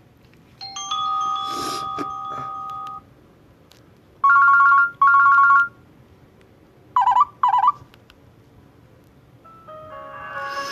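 Short Nokia 6700 Slide alert tones played one after another through a Nokia 150 phone's small speaker. First comes a chime that holds for about two seconds, then a double beep, then a pair of quick warbling chirps, and near the end a new multi-note melody begins.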